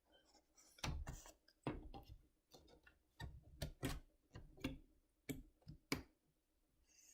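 Irregular light knocks and clicks of plastic and metal parts being handled while a laptop's replacement LCD panel is settled into its lid, about a dozen in six seconds, some with a dull thud.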